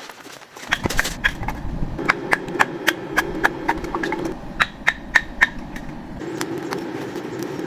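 A fast, regular series of sharp knocks, about three a second, each with a brief ringing tone, over a steady low hum. The knocks start about a second in and pause briefly a little after the middle.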